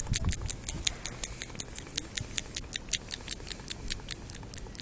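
Rapid, even clicking, about seven clicks a second, high-pitched, over a low rustling.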